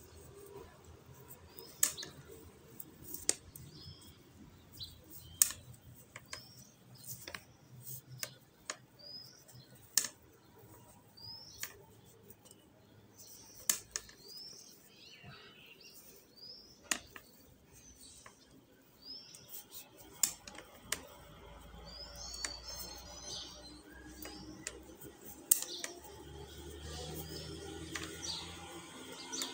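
Irregular sharp clicks and taps as the metal hook and fabric strip are worked by hand, with small birds chirping now and then in the background.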